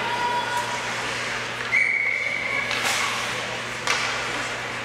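Ice hockey play: sharp knocks of puck and sticks. The hardest hit, about two seconds in, is followed by a ringing tone that lasts about a second, all over a steady low hum.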